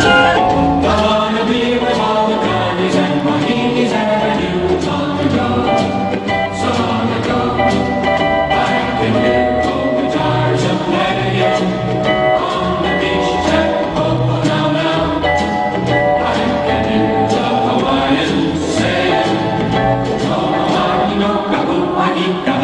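Music with singing for a stage dance number, loud and steady throughout.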